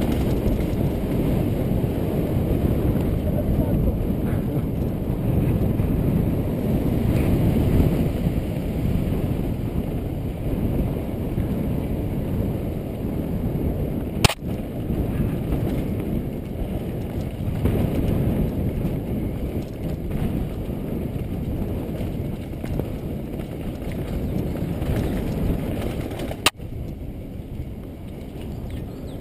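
Downhill mountain bike descending a dirt forest trail: a continuous rumble of tyres and rattling bike over the rough ground, mixed with wind on the microphone, swelling and fading with the terrain. Two sharp knocks ring out, one about halfway through and one near the end.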